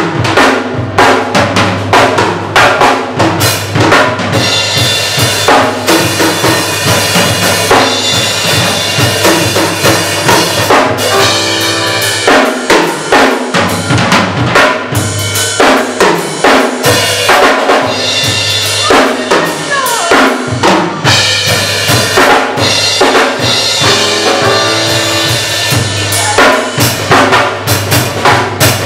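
Electric bass solo played live over a drum kit, with fast bass lines above dense drumming.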